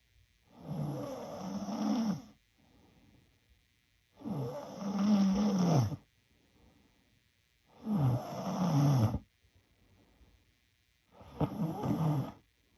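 A sleeping young woman snoring: four loud snores about three to four seconds apart, each with a wavering low pitch, with faint breaths between them.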